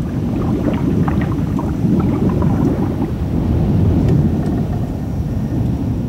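Underwater ambience: a steady low rumble with faint scattered clicks and crackles.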